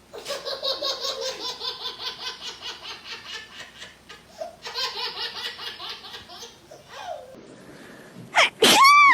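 Hard, rapid laughter in quick pulses, with a brief break about four seconds in, fading out around seven seconds. Near the end comes a short, much louder high-pitched sound that sweeps up and back down in pitch.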